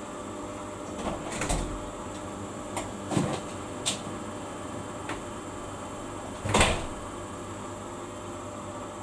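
Samsung ecobubble washing machine running with a steady hum, with a few irregular clunks and knocks, the loudest about two-thirds of the way through.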